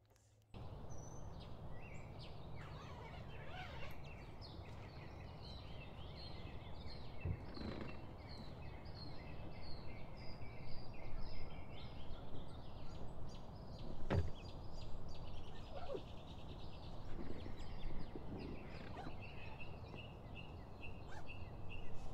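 Small birds chirping and singing in runs of short, quickly repeated high notes over a steady low background hum of outdoor noise. A sharp knock stands out about fourteen seconds in.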